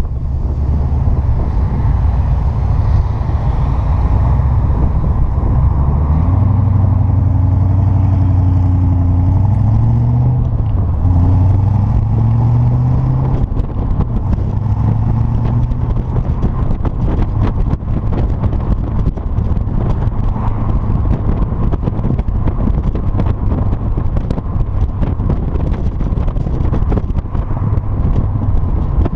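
Triumph TR7 V8's 3.9-litre Rover V8 running through a single-bore exhaust. The engine note climbs in pitch about six seconds in, dips briefly around ten seconds, climbs again, then settles into a steady drone.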